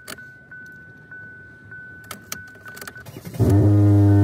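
Car key clicking and jangling as it is turned in the ignition of a Chevy Equinox, over a steady high electronic tone. About three and a half seconds in, loud guitar music starts.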